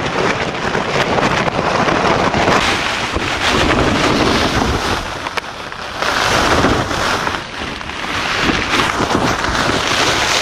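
Snowstorm wind blowing hard in gusts and buffeting the microphone, with brief lulls about five and a half and seven and a half seconds in.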